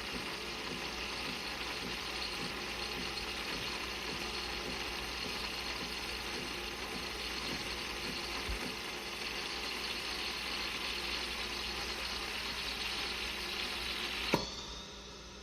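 De'Longhi Magnifica Start espresso machine running with a steady hiss, which cuts off with a sharp click near the end.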